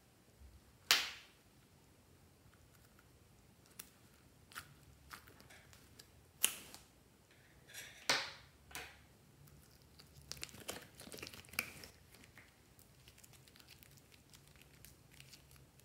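Small objects being handled on a table: a series of sharp taps and knocks, the loudest about a second in and two more near the middle, then a patch of small crinkly clicks a few seconds later as a piece of clay is pulled and stretched.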